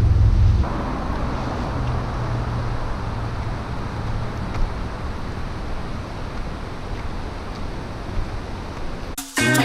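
Steady rushing outdoor background noise, heavier and deeper for the first half second, then even. Music with a beat starts near the end.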